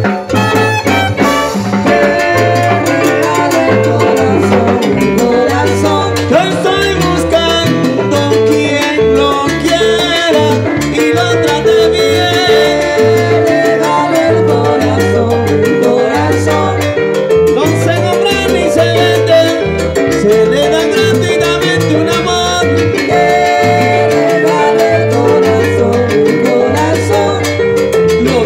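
Live salsa band playing loudly, with a repeating electric bass line under keyboard and drums.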